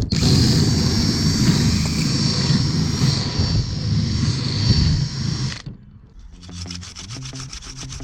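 Drill bit grinding corrosion out of the metal contacts of a tail light bulb holder: a loud, steady scraping for about five and a half seconds that stops suddenly, followed by a quieter, rapid rhythmic sound.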